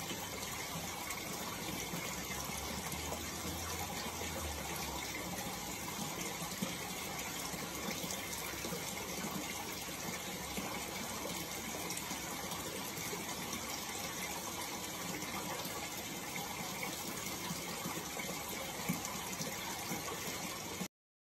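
Steady rush of running water from an aquarium filter or pump, with a couple of small ticks. It cuts off suddenly just before the end.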